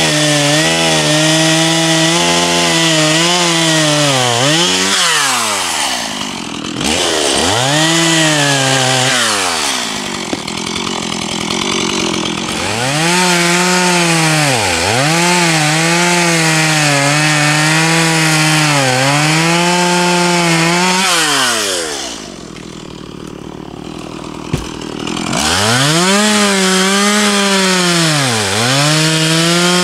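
Two-stroke petrol chainsaw cutting through a dry log at full throttle, its pitch dipping each time the chain bites and bogs under load. Twice it drops back to a quieter idle between cuts, then revs up again.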